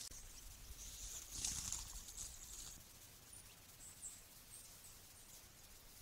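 Dry leaf litter rustling in patches as an animal moves over the forest floor, followed by a few brief, very high chirps.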